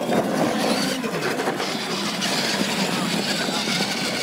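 Steady outdoor crowd hubbub of many voices, mixed with the whir of a radio-controlled monster truck's electric motor.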